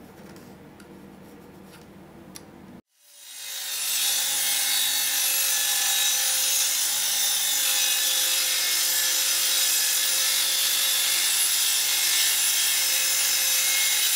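Faint pencil scratching on plywood, then a corded circular saw comes up to speed within about a second and cuts steadily through 10 mm plywood.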